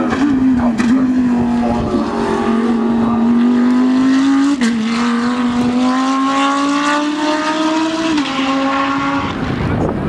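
GT3 race car engine at full throttle, its pitch climbing steadily and dropping at an upshift about four and a half seconds in, climbing again and shifting up once more about eight seconds in. The engine note dies away near the end.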